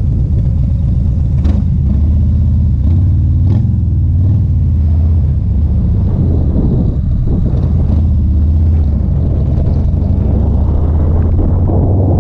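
Harley-Davidson Street Glide's V-twin engine running on the road while pulling a trailer, its low note fairly steady with a brief dip about seven seconds in.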